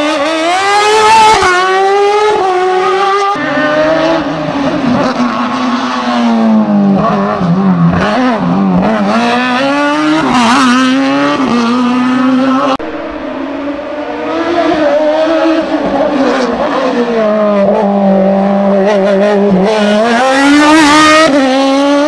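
Open sports-prototype race car engine revving hard and easing off again and again as it works through a cone slalom, its pitch climbing and dropping with each burst of throttle and gear change. The sound jumps abruptly twice, about three seconds in and about halfway through.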